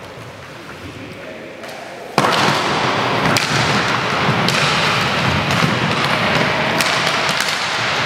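Inline hockey play on a wooden sports-hall floor: quiet at first, then a sudden jump in noise about two seconds in as the faceoff is taken and players skate off, with a few sharp stick clacks and knocks.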